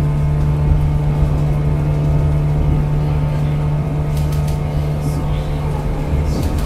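Steady mechanical hum with a constant low tone from a train's running equipment, with a few faint clicks after about four seconds.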